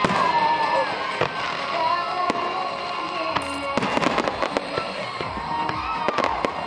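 A fireworks display: repeated bangs and crackling pops, thickest in a dense run starting about four seconds in, with music playing underneath.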